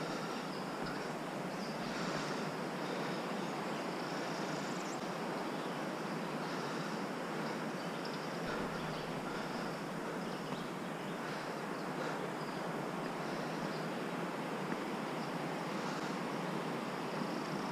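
Steady rushing of a waterfall on a creek, heard from some way off.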